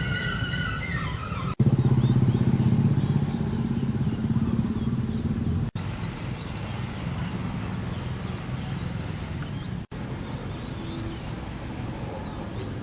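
A vehicle engine, likely a motorcycle, runs with a loud low rumble for about four seconds. It is followed by quieter outdoor background with a few faint high chirps.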